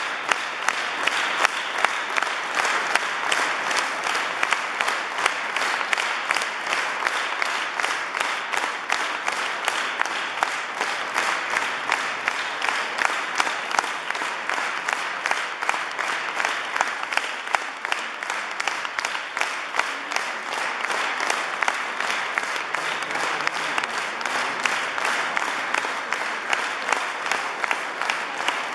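Concert audience applauding steadily, a dense even patter of many hands clapping.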